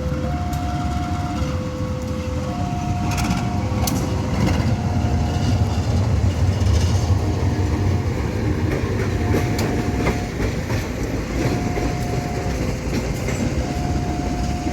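Train passing over a railway level crossing, its wheels rumbling and clattering, loudest around the middle. Over it the crossing's warning alarm keeps sounding, alternating a higher and a lower tone, each held about a second.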